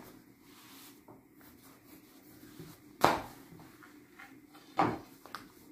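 Dough being rolled thin around a long, thin wooden rolling pin on a granite counter: a faint rolling rumble with two thumps as the pin knocks the stone, the louder about three seconds in and another near five seconds.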